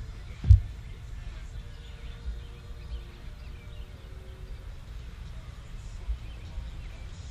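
Low wind rumble on a microphone sitting in the grass, with one sharp thump about half a second in and a few softer knocks later.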